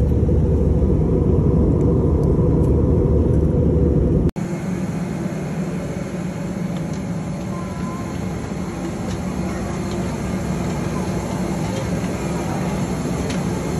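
Steady low rumble of an airliner cabin in flight, engines and airflow. About four seconds in it cuts to a quieter, steady mechanical hum of aircraft and ground equipment on the apron, with faint background voices.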